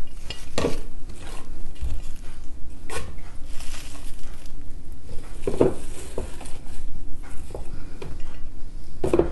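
Herbs and jalapeños being tipped from a plate into a plastic blender cup: a handful of separate knocks and clatters, with rustling in between.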